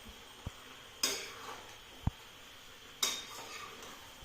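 A metal spoon stirring chicken frying in a pan. It clanks against the pan twice, about two seconds apart, with a couple of duller knocks between, over a faint sizzle.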